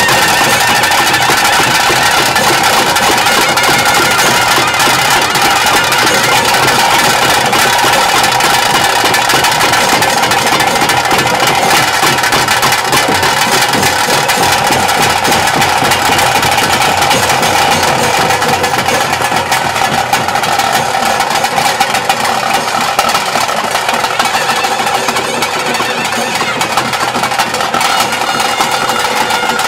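Loud traditional ritual music: drums beating fast and densely under a wind instrument holding long notes, playing without a break.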